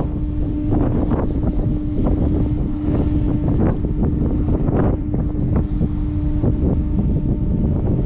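Wind buffeting the microphone, with the diesel engines of the approaching ro-ro ferry MV Earl Thorfinn droning as a steady low hum that fades about six and a half seconds in.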